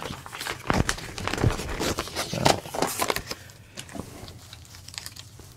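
A vinyl record and its paper sleeves being handled: rustling and scraping with scattered sharp taps, quieter after about three and a half seconds.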